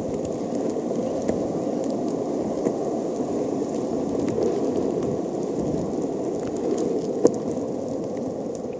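Longboard wheels rolling steadily over smooth asphalt, a continuous rolling noise with one sharp click near the end.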